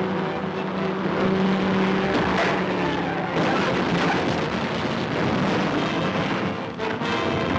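A car driving along a road: a steady hum for about the first two seconds, then a loud, even rushing of engine and road noise.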